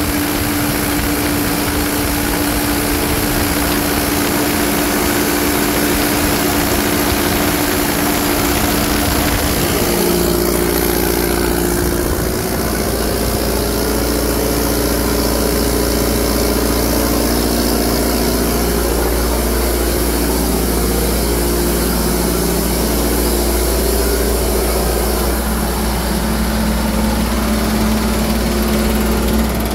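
John Deere 4039T four-cylinder turbo diesel driving a 50 kW Kohler generator, running steadily under electrical load. A deeper hum grows stronger about ten seconds in.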